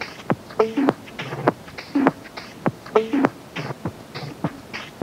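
Beatboxing: a rhythm of sharp mouth clicks and percussive hits, with a short pitched vocal figure that comes back about every two and a half seconds. It cuts off suddenly at the end.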